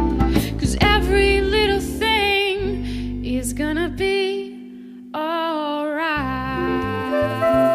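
Music: a slow arrangement of the song with a wavering lead melody, sung or played, over guitar and bass. The music thins out about four seconds in and comes back a second later.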